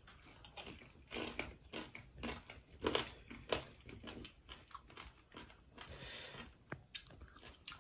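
A person chewing and crunching a mouthful of cooked crab, with irregular crisp crunches.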